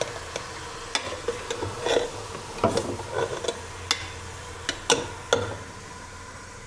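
Beef chunks frying in hot oil in a metal pot, stirred with a steel ladle that clinks and scrapes against the pot about once a second over a steady sizzle.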